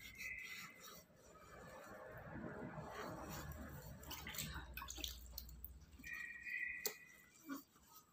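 Faint rubbing and rustling of a cloth towel wiping a freshly rinsed wet face, with a few small clicks. Two brief, faint high steady tones sound at the start and again about six seconds in.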